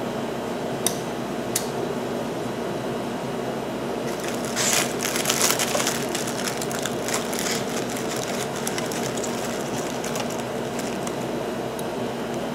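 Steel piston ring being worked by hand into the groove of an oversize piston: two single metallic clicks, then a few seconds in a spell of rapid scratchy clicking and scraping as the ring is spiralled around. A steady background hum runs underneath.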